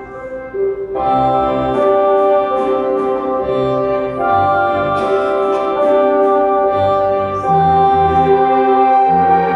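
Yamaha Electone two-manual electronic organ played by a young pupil: held melody notes over a moving bass line and accompaniment, the full sound coming in about a second in.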